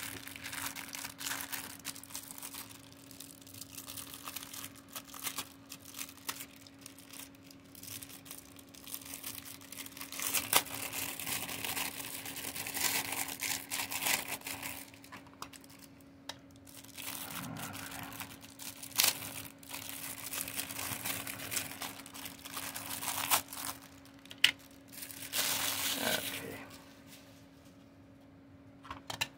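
Thin plastic wrapping crinkling and rustling in irregular bursts as a new laptop cooling fan is unwrapped and handled, with a few sharp clicks and taps. A faint steady hum runs underneath.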